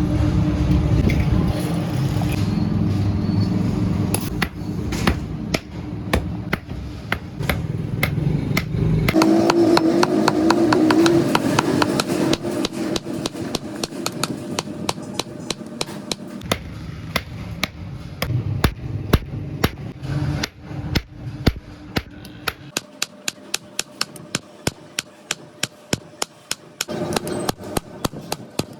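Hand hammer striking steel on an anvil in a quick, steady run of ringing blows, about three a second near the end, over a low rumble in the first third.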